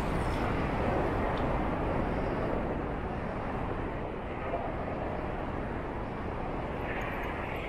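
Steady rushing noise of a moving bicycle ride: wind over the microphone with rolling road noise. No distinct events, a little quieter after about three seconds.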